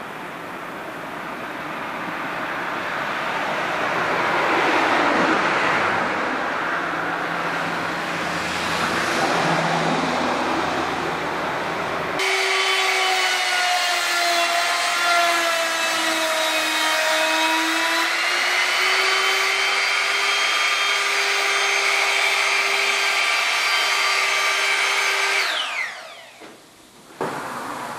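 For about the first twelve seconds a broad rushing noise swells and fades twice. Then an electric wood router starts abruptly: a strong, steady high whine whose pitch dips midway and recovers. Near the end it is switched off and winds down quickly.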